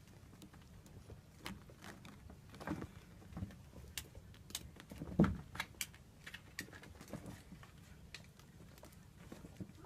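Irregular light clicks and taps, a few a second, with one louder knock about five seconds in.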